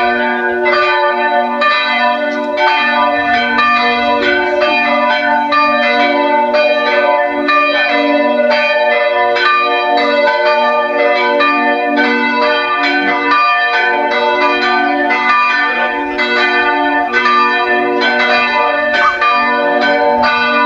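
Church bells pealing: several bells struck over and over, their ringing tones overlapping in a continuous peal.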